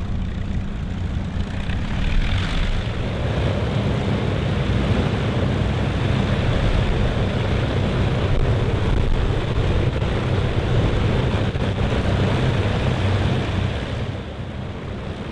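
Avro Lancaster's four Rolls-Royce Merlin engines running with propellers turning: a steady low drone that eases slightly near the end.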